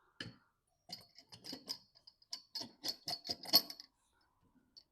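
A quick run of small hard clicks and taps, about a dozen, as parts of a printer's ink tank assembly are handled and set in place.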